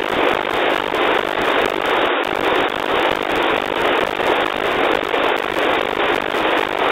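NOAA 15 weather satellite's APT image signal, demodulated as FM by an RTL-SDR receiver: a loud hissing static rush with a faint regular pulsing, the signal weak and noisy. The sound drops out for an instant about two seconds in.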